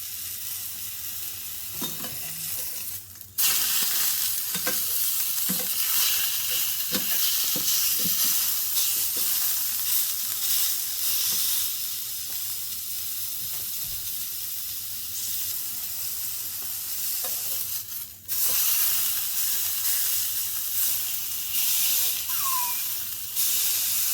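Beef steak frying in a little oil in a pan: a steady, fairly loud sizzle. It breaks off for a moment twice, about 3 seconds and 18 seconds in, and comes back a little louder each time.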